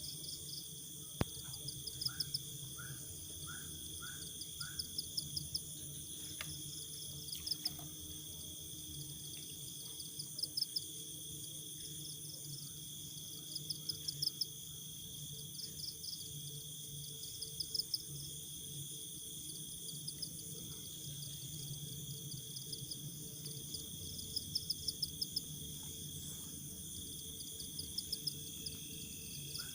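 Night insect chorus: crickets trilling in short repeated bursts over a steady high buzz, with a brief run of about five chirps about two seconds in.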